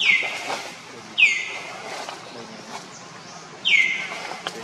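An animal's high call, given three times, each one starting high, sliding quickly down in pitch and held for a moment; the calls come about a second and then two and a half seconds apart.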